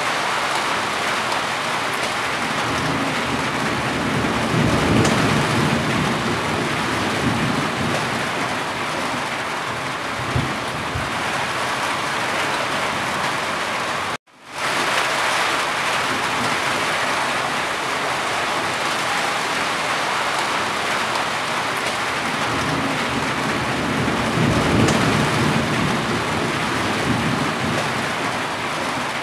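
Steady heavy rain falling on a corrugated roof, an even hiss of drops. A low rumble swells twice, and the sound cuts out for a split second about halfway through.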